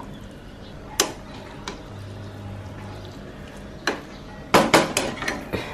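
A spatula knocking and scraping against a non-stick frying pan while stirring soya mince with peas and tomato. There is a knock about a second in, another near four seconds, and a quick run of clacks near the end.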